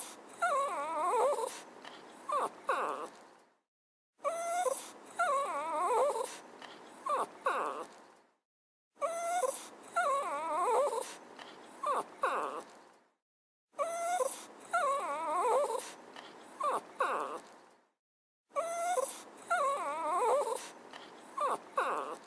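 A dog whining: high, wavering cries followed by a few short whimpers. The same clip repeats five times, about every four and a half seconds, with a short silence between repeats.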